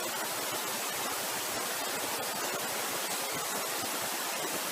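Steady, even background hiss, with no speech.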